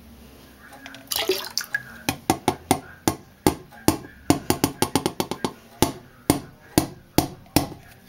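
Plastic popcorn seasoning container shaken and tapped upside down over a toilet bowl, knocking clumps of damp seasoning into the water: a short rush about a second in, then a string of sharp taps and plops, a few a second, that stop just before the end.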